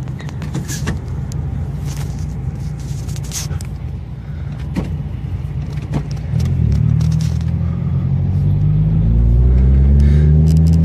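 Car running on the highway, heard from inside the cabin as a steady low rumble of road and engine noise, with a few sharp clicks. About two-thirds of the way in the engine note grows louder, and near the end it climbs in pitch as the car accelerates.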